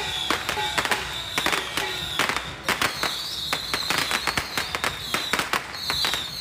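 Strings of firecrackers going off in rapid, irregular cracks, with a high shrill tone coming and going above them.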